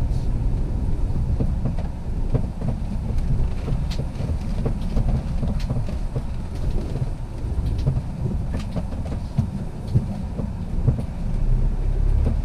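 Cab noise of a Sprinter 4x4 motorhome driving slowly over a rough, snow-covered dirt track: a steady low rumble from engine and tyres, with scattered clicks and knocks.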